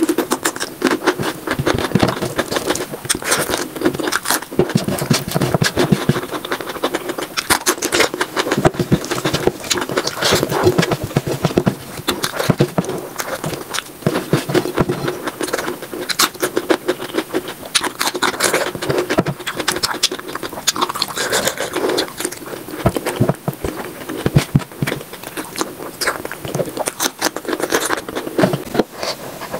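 Mukbang eating sounds played back at triple speed: a fast, dense stream of wet chewing, lip smacking and crunching. Fingers scrape food across a steel plate among them.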